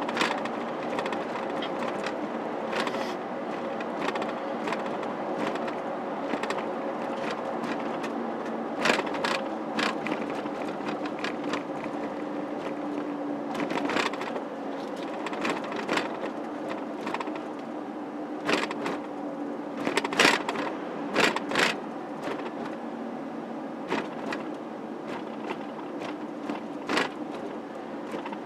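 Steady engine and road hum of a car being driven, heard from inside, with irregular clicks and knocks now and then.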